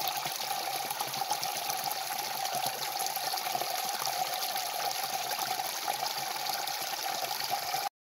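A small spout of water pouring out of a bank and splashing steadily into a pool. It cuts off suddenly near the end.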